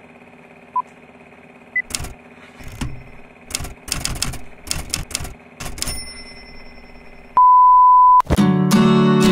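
Retro intro sound effects over a faint steady hum. First comes a single short countdown beep. Then a typewriter's keys clack in quick bursts, ending with a bell ding, and a steady test-tone beep is held for under a second before acoustic guitar music starts.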